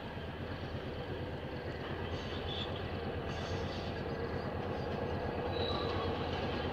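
Class M6 diesel-electric locomotive running with its dynamic brake applied as it approaches: a steady drone with a low hum, growing slowly louder, with a brief faint high tone near the end.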